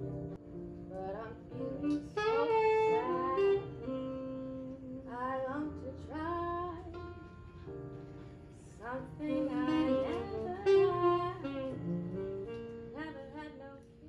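Jazz played on a saxophone: a melody with bending, sliding notes over held chords underneath.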